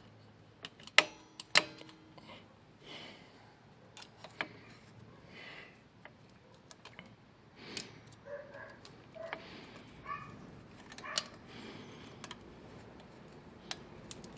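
Scattered metallic clicks and clinks of small parts and hand tools being handled while a car's rear drum brake and hub are reassembled, the two loudest about a second in and half a second apart.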